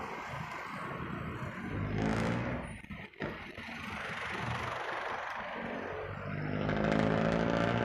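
Road traffic heard from a moving bicycle: passing motor vehicle engines over steady wind and road noise. One engine hum swells about two seconds in, and a louder one builds near the end.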